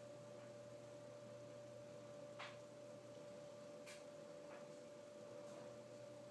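Near silence: room tone with a faint steady hum and two faint clicks in the middle.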